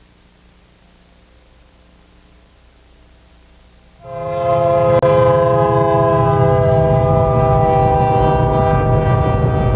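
Faint hiss, then about four seconds in a train horn starts: one long held chord of several notes, sagging slightly in pitch, over the low rumble of the passing train.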